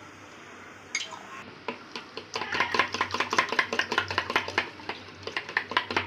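Steel spoon beating eggs in a plastic tub, making rapid clicking taps against the tub's sides and bottom. The taps start about two seconds in.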